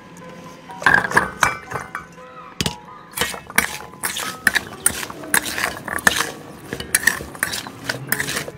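Jamun berries knocking and rolling in a stainless-steel bowl while being stirred with a metal spoon: a quick, irregular run of clinks and knocks.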